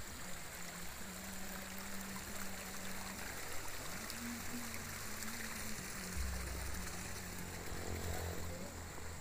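Steady rushing of running water, like a small stream or ditch channel flowing, with a low rumble coming in during the last few seconds.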